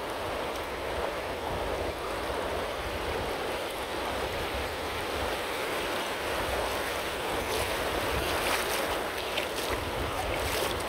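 Sea surf washing through the shallows, with wind on the microphone. Sharper splashing crackles come in over the last few seconds.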